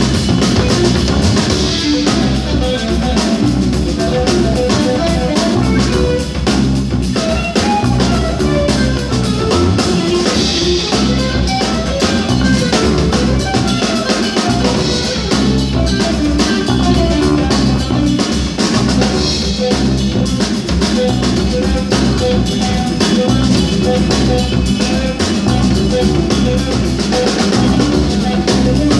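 A live jazz-funk trio of electric guitar, electric bass and drum kit playing an instrumental tune, the drums keeping a busy steady groove under the guitar line.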